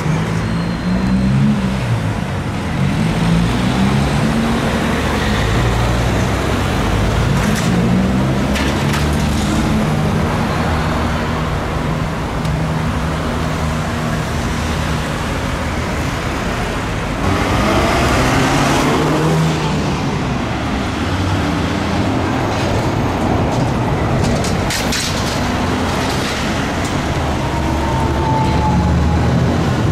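City street traffic, with trolleybuses and cars driving past and a low hum that rises and falls as they go by.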